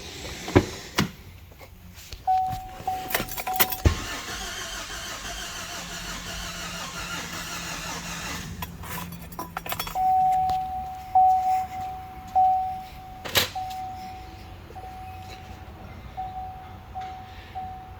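Starter cranking the 2014 Chevrolet Silverado's 4.3-litre V6 for about four seconds without it firing, with a compression gauge on cylinder 1; the cylinder reads pretty low. Before and after the cranking a steady in-cab warning chime tone sounds, with a few key and switch clicks near the start.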